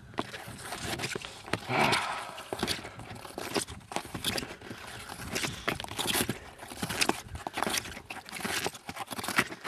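Snowshoe footsteps crunching and scraping through deep fresh snow, an irregular run of steps.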